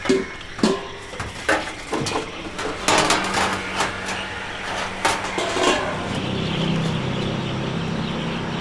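Street-food stall sounds: scattered clinks and knocks of dishes and utensils over a steady low engine hum from traffic.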